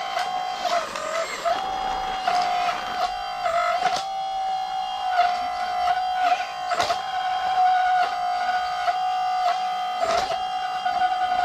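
Small electric motor of an RC construction model whining steadily at one pitch, dipping briefly now and then, with scattered sharp clicks and knocks from the model's moving parts.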